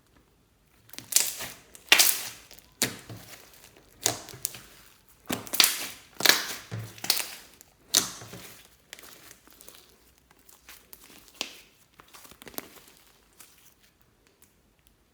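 Fluffy slime being squished and stretched by hand, giving a run of irregular sticky crackles and pops. The crackles are loudest in the first half and thin out toward the end.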